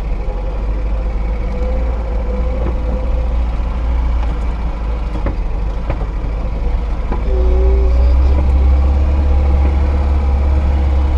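A Lada Niva's four-cylinder engine and drivetrain running as it drives along a rough track. The low rumble gets louder about seven seconds in, with a few light knocks.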